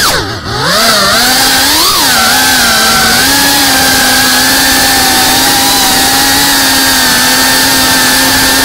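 Brushless motors and propellers of a GEPRC FPV quadcopter whining, heard through its onboard Runcam Thumb Pro camera. The pitch swoops down and back with a brief dip about half a second in, rises and falls again near two seconds, then holds steady.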